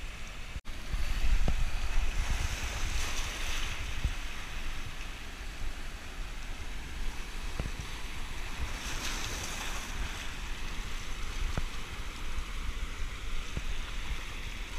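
Surf washing and foaming over a shallow rock reef, with wind buffeting the microphone. The wash swells louder about two seconds in and again about nine seconds in.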